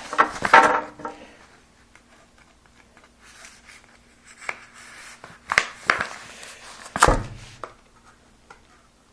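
A package being handled and opened by hand: a quick run of sharp knocks and scrapes at the start, a quiet stretch, then a few more separate knocks and scrapes.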